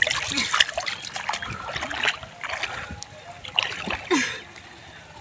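Hands groping in shallow muddy water, feeling for crabs: irregular splashing and sloshing with some trickling, and a bigger splash about four seconds in.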